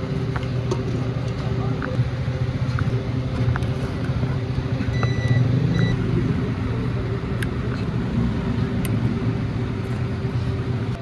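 Steady low motor rumble with scattered light clicks and taps, and a short high tone about five seconds in.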